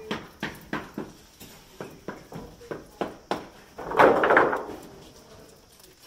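Footsteps of a person walking across a construction site, about two to three steps a second, with a louder, longer burst of noise about four seconds in.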